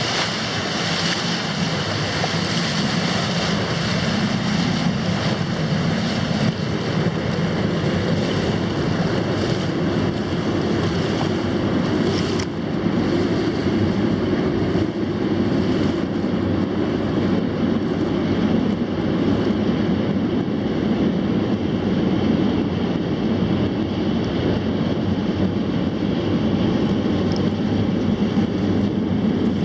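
Rushing river water from whitewater, with wind buffeting the microphone, steady throughout.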